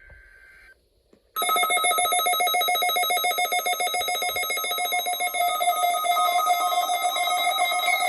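Weather radio test signal: the end of a NOAA Weather Radio SAME data burst, a faint two-tone electronic screech, cuts off. About a second and a half in, the weather radio warning alarm starts, a loud, rapidly pulsing electronic tone that holds steady. It marks the Required Weekly Test of the warning system.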